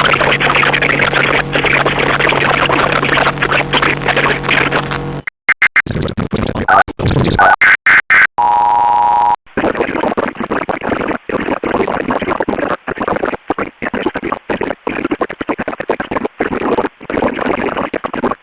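Garbled, glitching electronic broadcast audio: dense harsh noise that breaks into stuttering cut-up fragments about five seconds in. A brief steady electronic tone sounds near the middle, then the dense noise resumes.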